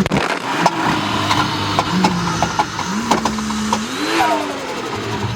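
Car engine revving at a standstill: it holds raised revs, then climbs and drops back about four seconds in, with sharp pops and crackles scattered throughout.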